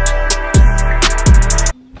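Music with a heavy beat: deep kick drums that drop in pitch, quick hi-hat ticks and held chords, cutting off abruptly near the end.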